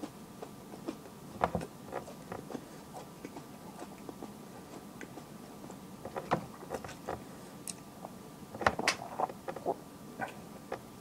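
A person chewing a raw Brainstrain chili pepper: scattered crunches and mouth clicks, the loudest about a second and a half in, around six seconds, and a cluster near nine seconds.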